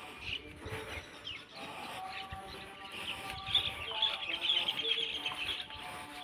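Birds chirping, a dense twittering that grows busier in the second half.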